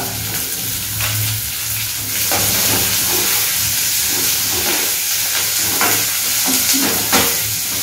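Chopped onion, curry leaves and green chillies sizzling in hot oil with mustard seeds and urad dal, the first frying of the tempering. A steel ladle stirs them in a steel pan, scraping against it a few times.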